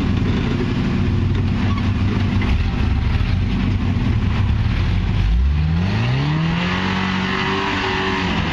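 Off-road vehicle's engine pulling at low revs while climbing over rock, then revving up about five seconds in and holding the higher revs.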